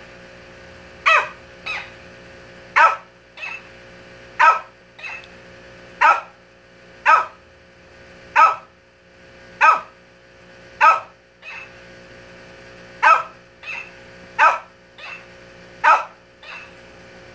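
Shih Tzu giving single sharp barks, about one every second and a half. Most barks are answered a moment later by a quieter copy: a mimic talking-hamster toy playing the bark back.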